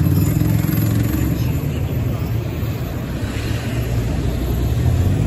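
Medium-duty box truck's engine running loudly and steadily as the truck drives slowly past, a deep, low engine note with road noise over it.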